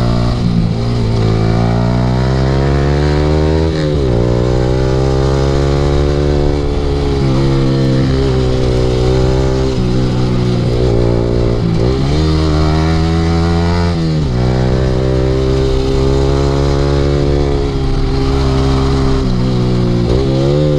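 Yamaha R15's 155 cc single-cylinder engine, heard through an Akrapovic aftermarket exhaust, pulling hard through a corner sequence. The pitch climbs steadily under throttle and drops sharply several times at gear changes or lifts of the throttle.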